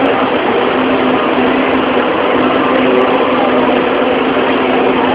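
Steady drone of heavy machinery: an engine-driven rig holding a constant low hum under a broad rushing noise, with no change in pitch or load.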